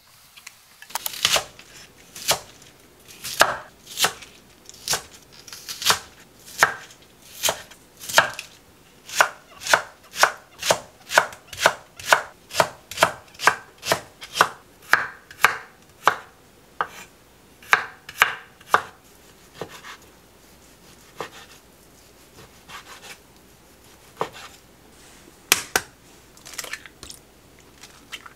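A kitchen knife slicing bok choy stems on a wooden cutting board: a regular run of sharp chops, about two a second at its quickest in the middle. The chops thin out and grow fainter after about 20 s, with a few louder ones again near the end.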